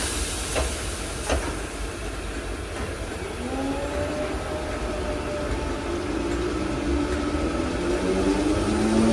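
Merseyrail Class 508 electric multiple unit pulling away from the platform. After two short clicks, the traction motors start a whine about three seconds in, several tones climbing steadily in pitch as the train gathers speed.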